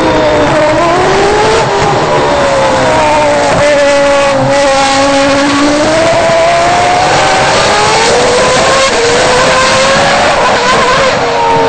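Formula 1 car's engine, a Red Bull RB1 with a V10, running loud, its pitch falling and rising several times as it lifts off and accelerates again.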